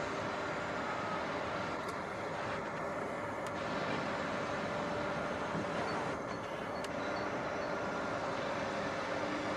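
Truck-mounted hydraulic loader crane with a scrap grab at work: the truck's engine and hydraulic pump running steadily with a constant hum and faint whine, and a few faint clicks as the boom swings.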